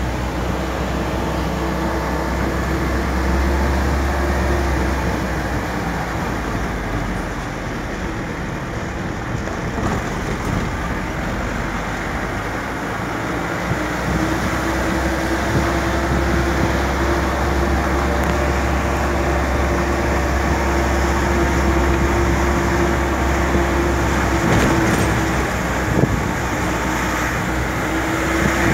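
Motor vehicle engine and road noise heard from inside the cab: a steady drone with a low hum that eases off for several seconds about a quarter of the way through, then returns.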